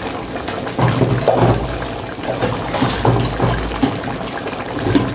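Hot water being poured from one cooking pot into a metal pan, with a few bumps of the cookware being handled.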